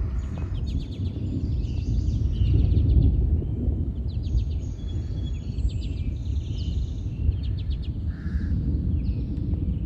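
Several birds chirping and trilling in quick runs of notes over a loud, uneven low rumble that swells about three seconds in.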